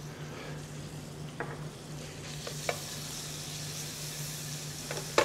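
Diced bacon sizzling as it starts to render its fat in a stainless steel sauté pan with a little olive oil, stirred with metal tongs that click against the pan a few times. A steady low hum runs underneath.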